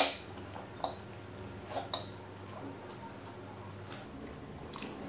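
A few light, scattered clinks and taps of forks against plates.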